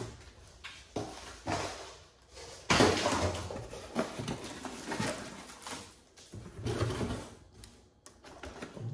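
Cardboard box and packaging rustling and scraping in irregular bursts as a boxed RC truck is lifted out, the loudest about three seconds in.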